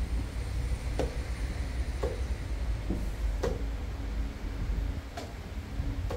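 Chess pieces being set down on the boards and chess clock buttons being pressed: about seven sharp, irregular clicks, roughly one a second, over a steady low hum.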